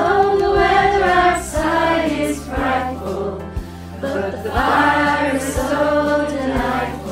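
A group of mostly women's voices singing a Christmas song together over a backing track with a steady beat about once a second.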